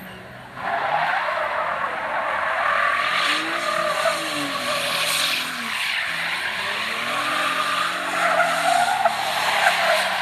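2009 Pontiac G8's V6 revving hard while the rear tyres spin and squeal in a smoky burnout, starting suddenly about half a second in. The engine note rises and falls twice under the steady tyre squeal.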